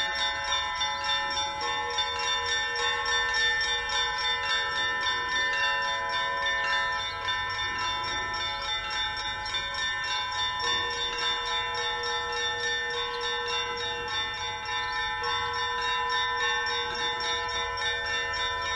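Russian Orthodox monastery belfry bells in continuous ringing: many smaller bells at different pitches struck rapidly over one another, their tones sustaining into a steady, dense peal.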